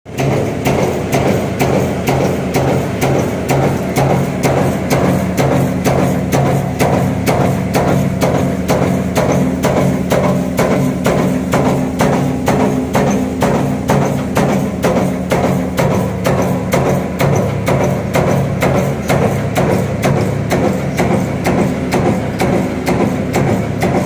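Expanded metal lath mesh machine running: its slitting and stretching press strikes in a fast, even rhythm of about two to three strokes a second, over a steady low motor hum.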